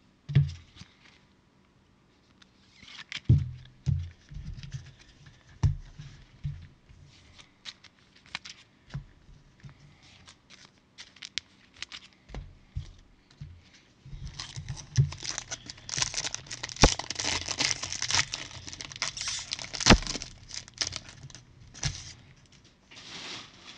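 A foil trading-card pack being handled and torn open, its wrapper crinkling. Scattered knocks and clicks come first, then from about halfway through a long stretch of dense crinkling and tearing.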